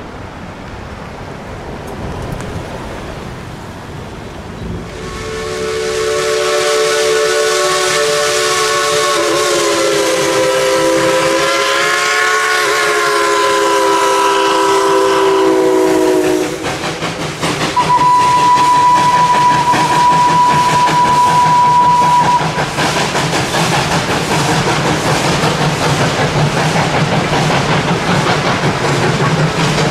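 A steam locomotive's chime whistle blows one long multi-note blast with a hiss, its pitch wavering near the middle. A couple of seconds later comes a shorter single-note whistle. Then the open passenger cars of the narrow-gauge train roll across a wooden trestle with a steady rumble and rapid clicking of the wheels.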